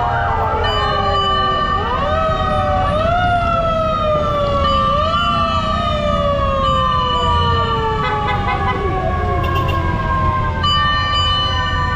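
Several fire truck sirens sounding together, their overlapping wails sliding slowly down in pitch and jumping back up out of step, with some holding a steady note, over a low engine rumble.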